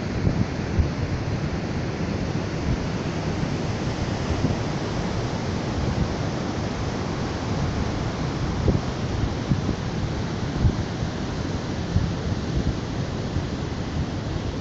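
Wind buffeting the microphone, a steady rush with irregular low gusts, over the wash of ocean surf.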